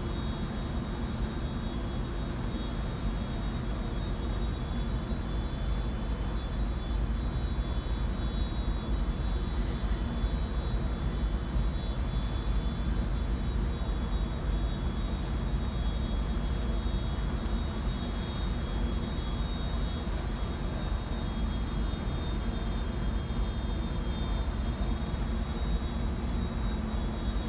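Steady, unchanging low drone of ship engines and ventilation machinery, with a thin high whine held on one pitch above it.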